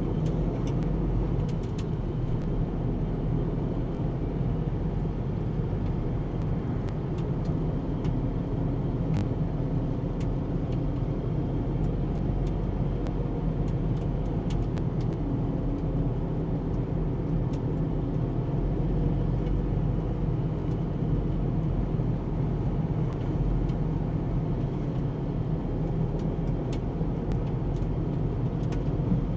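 Tractor engine running at a steady speed, heard from inside the cab as a low, unchanging drone.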